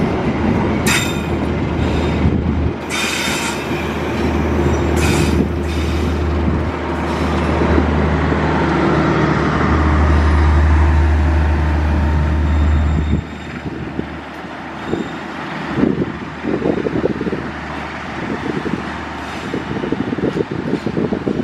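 Passenger train coaches rolling past at close range, wheels squealing on the rails in short bursts over a steady low diesel drone. The drone swells as the rear power car passes, then drops off suddenly a little past halfway, leaving rattling wheel knocks and clacks.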